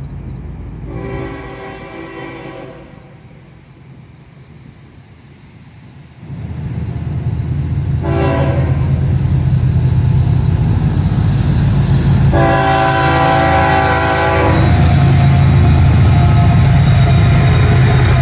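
Florida East Coast GE ES44C4 diesel locomotive sounding its horn for a grade crossing: a long blast about a second in, a short one at about eight seconds and another long one at about twelve seconds. Under the horn, the locomotive's deep engine rumble swells from about six seconds and is loudest near the end as it passes.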